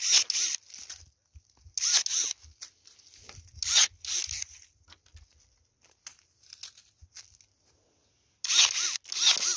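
Hand pruning shears cutting pear shoots: several short, crisp snips with rustling of the branches, a pair of them near the end.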